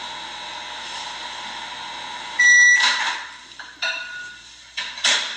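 Microwave oven running with a steady hum, then one loud beep about halfway through as its 30-second heating cycle ends, followed by a few clicks and knocks.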